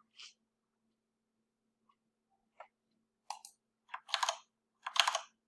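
A few faint, short clicks and clatters of a computer mouse and keyboard, spaced irregularly, the loudest near the end, as text is selected and copied.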